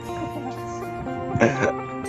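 Background music with steady sustained notes, and a short, loud cough-like vocal sound about one and a half seconds in.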